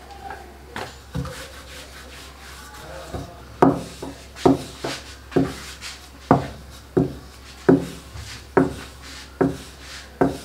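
Wooden rolling pin rolling out paratha dough on a stone countertop: a soft rubbing at first, then from about a third of the way in a sharp wooden knock with each stroke, roughly one a second.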